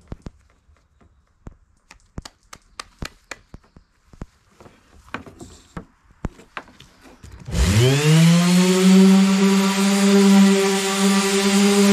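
Scattered light clicks and taps of an electric orbital sander being handled and fitted with its sanding disc. About two-thirds of the way in, the sander switches on: its motor spins up with a quick rising whine, then runs loudly and steadily while sanding the wooden deck of a kayak to prep it for painting.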